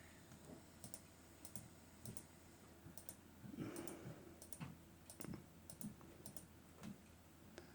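Faint, scattered clicks of typing on a computer keyboard, with a brief soft noise about halfway through.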